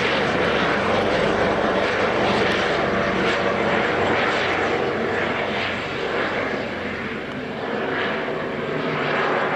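Air ambulance helicopter's engine and rotor noise, a steady rushing sound that swells and eases slightly.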